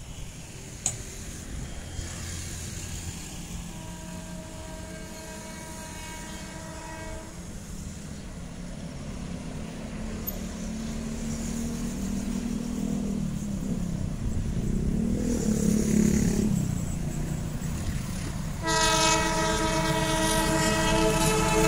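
Approaching diesel locomotive sounding its multi-note horn twice: a blast of about three seconds some four seconds in, and a louder, longer blast starting near the end. Between them the engine's low rumble grows steadily louder as the train comes closer.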